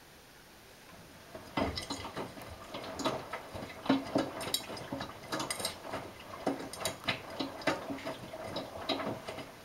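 Miele Navitronic front-loading washing machine starting to turn its drum after a pause: wet work clothes tumbling with irregular clicking and knocking, several clicks a second, beginning about a second and a half in.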